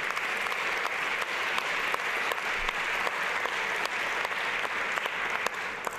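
Audience applauding steadily, many hands clapping at once, dying away near the end.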